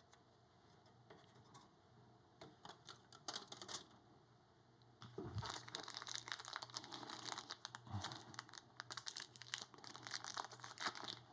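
Faint crinkling and rustling of plastic packaging, with scattered small clicks, as PC parts are handled. It comes in short bursts at first and becomes a denser run of crackles about five seconds in.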